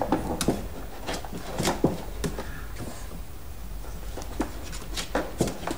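Small plastic toy pieces being handled, giving scattered light clicks and taps, a few close together near two seconds in and again near five seconds in.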